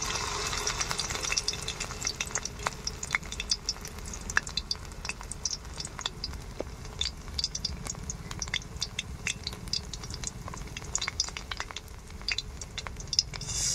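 Batter-coated taro stolon fritters deep-frying in a karahi of hot oil: a steady sizzle with many scattered crackles and pops, over a low steady rumble.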